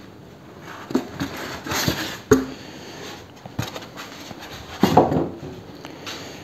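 Cardboard box packaging being unpacked by hand: a white packing insert lifted out, with rustling and scraping of cardboard and a sharp knock about two seconds in.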